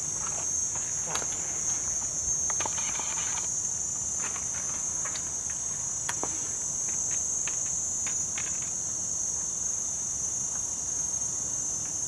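Steady, high-pitched insect chorus, with scattered small clicks and crackles through it.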